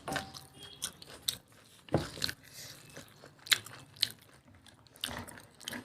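A person chewing mutton curry and rice, close to the microphone: scattered short mouth clicks and smacks, the loudest about two seconds in and again about three and a half seconds in.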